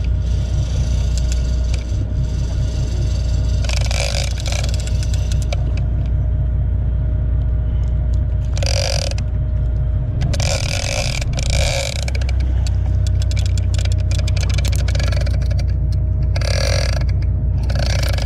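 Boat engine running at idle, a steady low rumble, with several short hissing bursts over it, the loudest about 9 seconds in and near the end.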